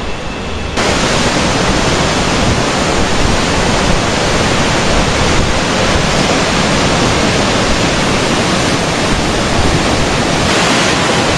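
Tsunami floodwater rushing and churning, a loud steady wash of water noise that steps up louder about a second in.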